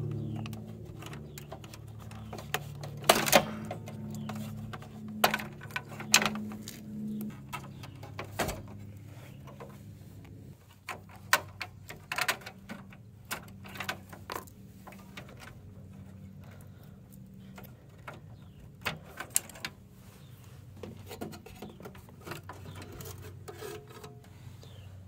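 Irregular clicks and knocks of plastic and metal as desktop computer parts are handled: drive cables unplugged and blue plastic drive caddies and brackets pulled out of the steel case. A steady low hum runs underneath.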